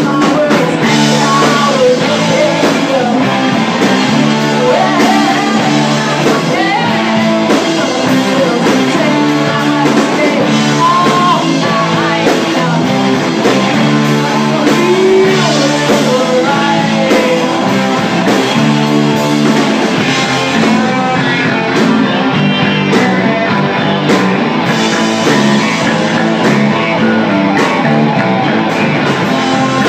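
Live rock band playing a song with guitar and a singing voice; the singing drops out about two-thirds of the way through, leaving the band playing on with steady drum strokes.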